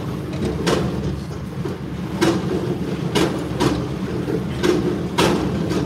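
JCB loader's diesel engine running steadily while its feeder bucket feeds out fodder beet, with about five irregular knocks and clatters from the bucket.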